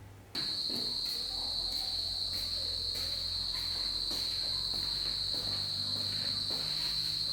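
Insects chirring in one steady high-pitched trill that starts abruptly about a third of a second in, with faint ticking underneath.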